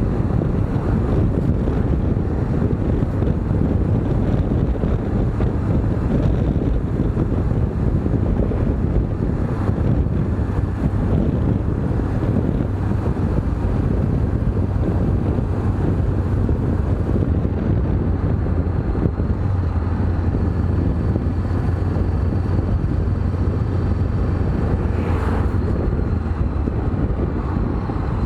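Wind buffeting the microphone on a moving Honda CB500X motorcycle, with the bike's parallel-twin engine running steadily beneath it.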